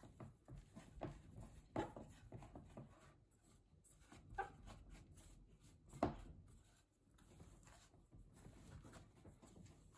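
Faint rubbing and pressing of hands kneading sticky mugwort and rice-flour dumpling dough in a bowl, with a few soft knocks of hand and dough against the bowl, the loudest about six seconds in.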